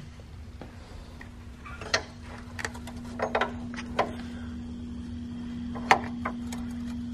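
Irregular metal clicks and knocks of hand work at a car's engine mounts, as spacers and mount bolts are fitted, the sharpest knock about six seconds in, over a steady low hum.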